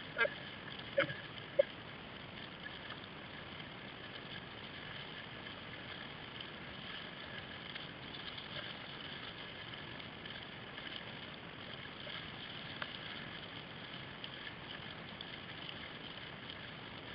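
Kayak paddling: a steady wash of water and paddle splashes around the hull, with three sharp knocks in the first two seconds.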